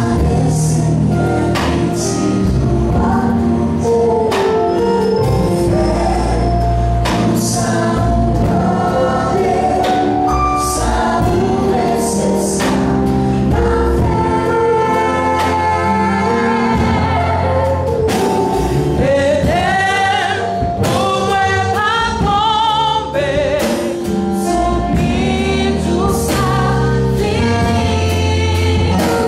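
Live gospel song: women sing the lead into microphones with a choir behind them, over a church band of electric keyboard, bass and drum kit, amplified through a PA.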